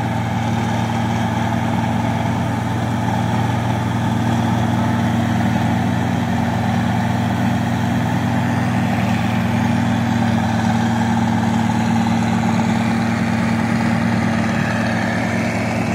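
Diesel engine of a New Holland tracked combine harvester running at a steady pace as the machine crawls along the edge of a rice field, a constant low drone.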